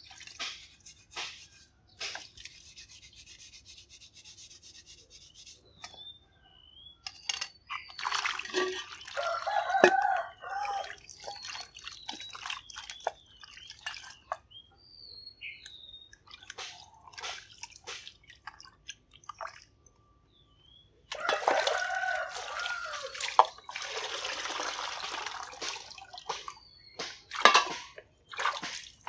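Jackfruit chunks being lifted by hand out of a basin of water and dropped into a metal pot: water splashing and dripping, with scattered clicks and knocks. The splashing comes in two longer bouts, one about a quarter of the way in and one about three quarters of the way in.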